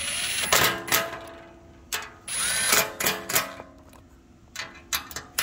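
Metabo HPT cordless impact driver on a low setting, running in several short bursts as it snugs down hex bolts, its motor winding up and down each time. A few sharp clicks come near the end.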